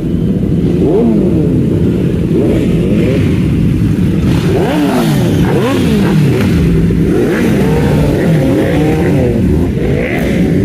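Superbike engines, among them a green Kawasaki sport bike, revving as the bikes roll past slowly. Repeated throttle blips rise and fall in pitch, with more than one engine overlapping.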